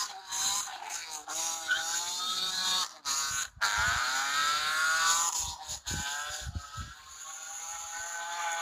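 BMW E46 3 Series race car's engine revving hard on and off, its pitch rising and falling with one long climbing rev about halfway through, as the rear tyres spin. Tyre noise runs underneath, and a few dull thumps come just after the big rev.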